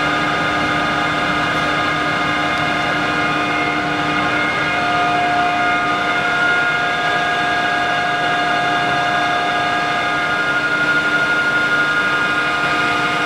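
Kingston HJ-1100 tool room lathe running idle with its 3-jaw chuck spinning: a steady whine of several held tones from the geared headstock. It is running smoothly, and one tone slides slightly lower about four seconds in, then holds.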